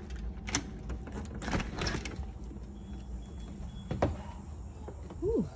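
A door being opened: its knob and latch clicking and rattling over the first two seconds, then a single sharp click about four seconds in. Near the end comes a short vocal sound that falls in pitch.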